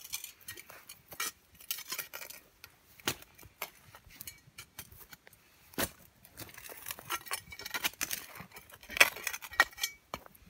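Steel blade of a folding entrenching tool digging into rocky soil: irregular scrapes and chops, with sharp clinks where it strikes stones, the loudest about nine seconds in.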